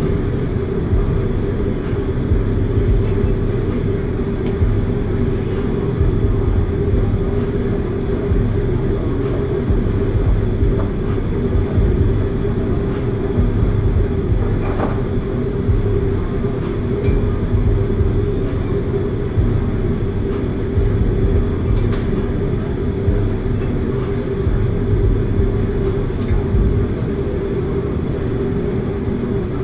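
A steady low mechanical drone with an even pitch, with a few faint clicks of metal tools.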